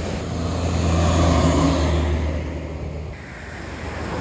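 A bus driving past close by: a low engine rumble swells about a second in and fades away after about three seconds.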